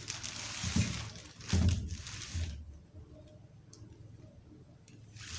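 Handling noise: rustling and scraping with two dull thumps in the first two and a half seconds, then quiet room tone with a few faint ticks.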